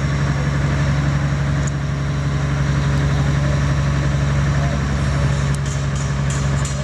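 An engine idling steadily, a loud, even low drone that holds one pitch throughout, with a few faint ticks near the end.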